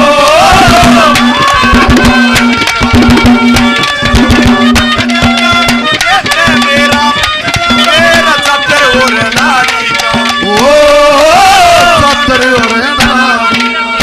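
Instrumental interlude of Haryanvi ragni folk music: a drum rhythm under a gliding melodic lead and a steady drone note that breaks off and returns.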